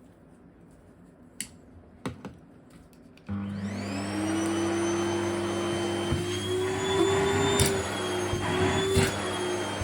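A few clicks, then a little over three seconds in a vacuum cleaner switches on suddenly. Its motor whine rises and settles into a steady run, with small wavers in pitch and a few sharp pops as it sucks at cloth.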